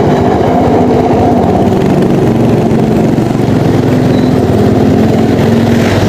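Motorcycle engine running steadily at low road speed, loud and close, heard from the rider's seat.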